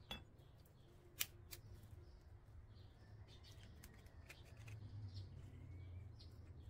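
An egg being cracked by hand: one sharp crack about a second in, then a few small clicks of shell over a faint background. Soft bird chirps are faintly audible.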